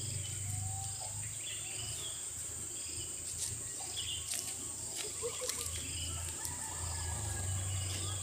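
Insects trilling in a steady high drone, with scattered bird chirps and a few sharp clicks in the middle.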